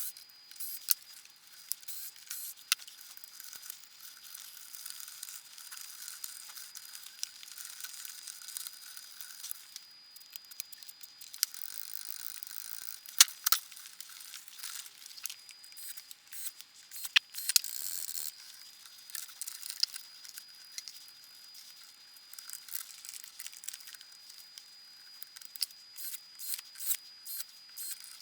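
Contact cleaner sprayed in two short hisses into the receiver's control switches and pots, among many small clicks and handling noises from working the controls.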